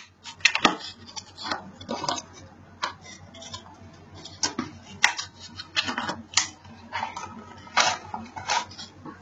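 A smartphone's retail box and its packaging being handled and opened by hand: irregular light clicks, taps and short rustles of cardboard and plastic.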